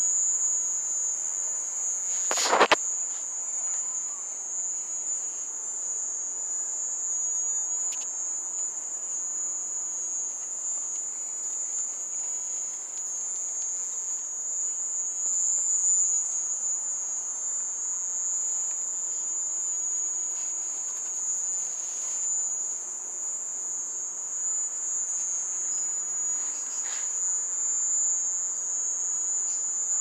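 Cricket trilling in one steady, high-pitched buzz without a break; the uploader identifies the loud buzzing insect as a mole cricket. A single sharp knock sounds about two and a half seconds in.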